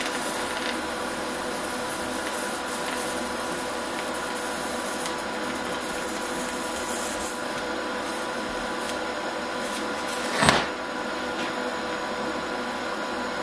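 TIG welding on 3/16-inch steel plate with a small 140 welder rated only for 1/8-inch plate, running too cold: a steady electrical hum and hiss. There is one sharp crack about ten and a half seconds in.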